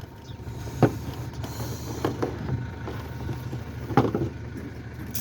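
A handful of sharp clicks and knocks from hands and tools working on a car's headlight area, over a steady low hum.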